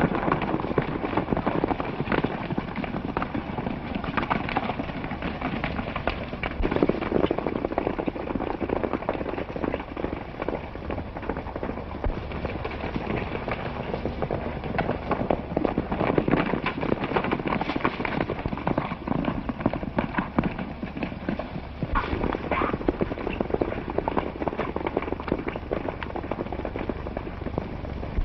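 Several horses galloping hard, a dense, continuous clatter of hoofbeats.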